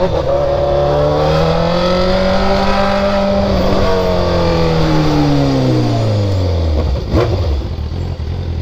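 Sport motorcycle engine: revs climb, hold steady for a couple of seconds, then wind down slowly as the bike slows to a stop, settling into a low idle. There is one short sharp knock about seven seconds in.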